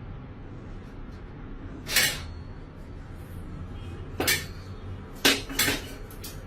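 Four short knocks or clatters, about two, four and five seconds in, over a low steady hum.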